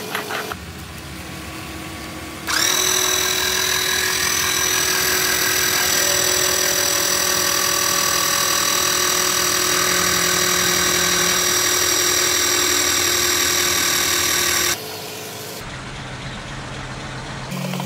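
12-volt electric hydraulic car jack's motor and pump running with a steady whine as it lifts a car. It starts about two and a half seconds in and stops abruptly a few seconds before the end.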